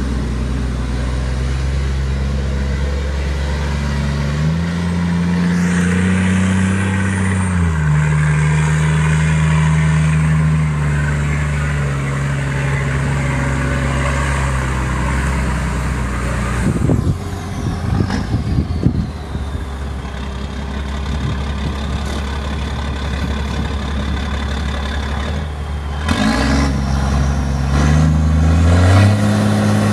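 The 12.1-litre six-cylinder turbo diesel of a 2004 Volvo A40D articulated haul truck running under load, its pitch stepping up and down several times. A stretch of irregular rattling knocks comes about halfway through, and the engine revs up twice near the end.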